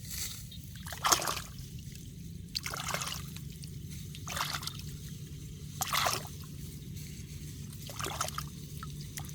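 Water splashing in short bursts, several times at uneven intervals of one to two seconds, over a low steady hum.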